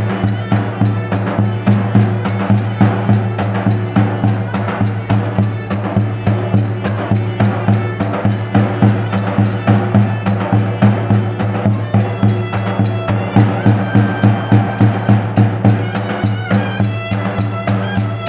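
Live Turkish folk dance music: a davul bass drum beaten in a steady quick rhythm under a reed pipe playing a wavering, ornamented melody.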